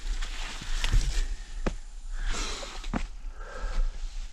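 A hiker climbing a steep rocky trail: footsteps scuffing on rock, breathing, and a few sharp knocks from the hand-held camera stick, over a low steady rumble of handling noise.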